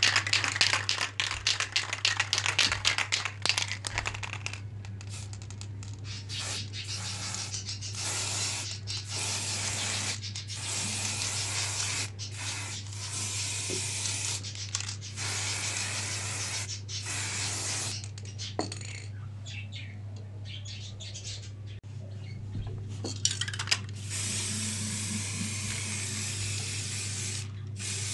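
Aerosol can of white spray paint hissing in repeated bursts of one to a few seconds, with short gaps between them. For the first few seconds the can rattles as it is shaken, its mixing ball clattering.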